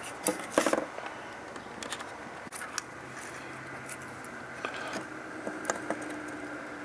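Flush wire cutters snipping off the excess capacitor leads after soldering: a couple of sharp clicks in the first second, followed by scattered small clicks and taps.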